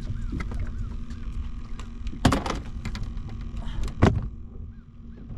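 Two loud, heavy thumps aboard a fishing boat, about two seconds apart, over a steady low hum.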